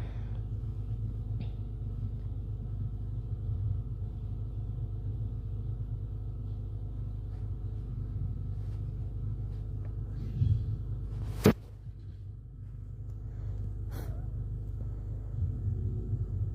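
Steady low background rumble with a faint hum. A single sharp click comes about two thirds of the way through, and a couple of brief softer noises sit around it.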